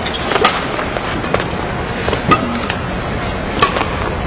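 Badminton rackets striking a shuttlecock back and forth in a rally: four sharp hits about a second apart over steady hall noise.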